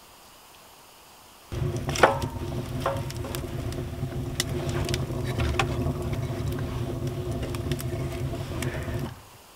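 Wood fire burning hard in a small wood-burning stove: a steady low rumble of the draft, with the wood crackling and snapping throughout. There is a sharp clank about two seconds in, and the sound cuts off suddenly near the end.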